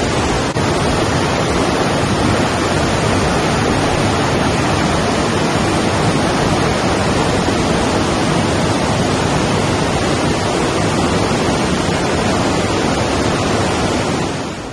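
Rushing river water: a loud, steady roar with no let-up, dropping away briefly near the end.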